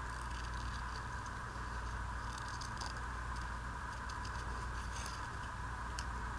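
Scissors snipping through paper while trimming around a small cut-out, heard as irregular short clicks in small clusters over a steady background hum.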